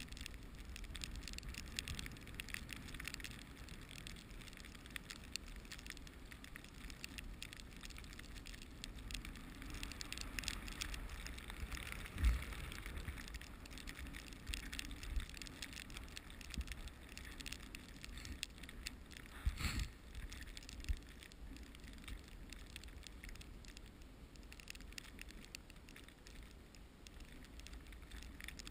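Dog sled pulled by a team of Siberian huskies moving over snow: a steady crackling, scraping hiss of runners and paws on the snowy trail over a low rumble, with two sharper knocks in the middle stretch.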